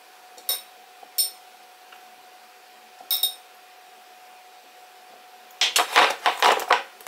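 A metal spoon clinks against a glass cup three times with a short ring as peach is spooned onto a layered chia pudding. Near the end comes a louder second or so of cutlery and dishes clattering, over a faint steady hum.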